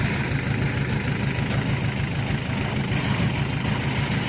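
Diesel engines of a farm tractor and a Yanmar AW82V combine harvester running steadily as the tractor starts to tow the combine out of the mud.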